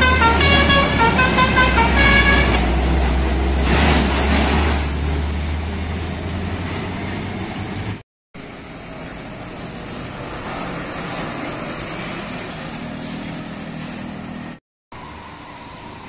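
Tour bus's multi-tone telolet horn playing a short stepping tune over its diesel engine, which fades as the bus pulls away. After a cut about 8 seconds in, a dump truck's diesel engine approaches, growing louder near the end.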